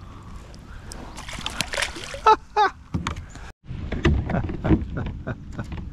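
Irregular knocks, clatter and small splashes from handling aboard a kayak on the water. The sound cuts out for an instant just past halfway.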